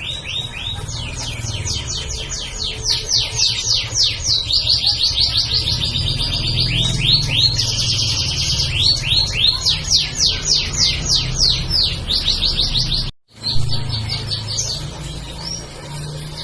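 Canary singing a long, continuous song of rapid trills, each phrase a fast run of repeated notes, switching to a new phrase every second or two. The song cuts out briefly about 13 seconds in, over a low steady hum.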